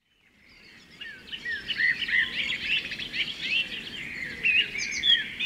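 Songbirds singing: a run of quick, varied chirps and whistles that fades in over about the first second.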